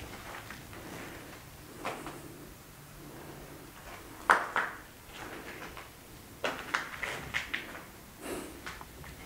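Footsteps on a concrete floor littered with grit and broken plaster: irregular scuffs and crunches, the sharpest about four seconds in.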